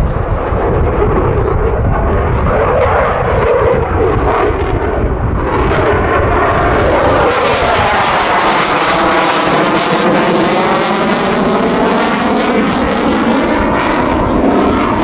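Eurofighter Typhoon jet with twin Eurojet EJ200 engines, running loud during a display manoeuvre. About five seconds in the sound broadens into a harsher, brighter rush with a sweeping, phasing quality as the jet passes.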